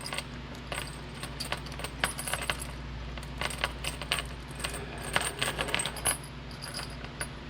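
Truck tailgate chain and its small hardware clinking and rattling as they are handled, a loose run of light metallic clicks over a steady low hum.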